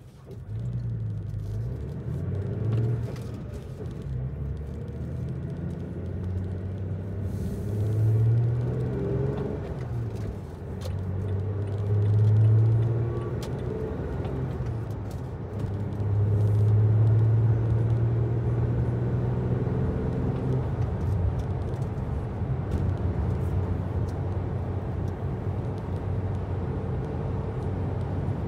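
A motor vehicle's engine running, starting abruptly and then rising and falling in pitch several times, as when driving and changing speed.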